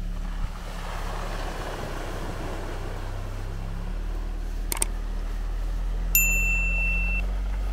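ATV engine running steadily, with a noisier stretch of tyres through mud and water early on. About six seconds in, a bright ding rings for about a second.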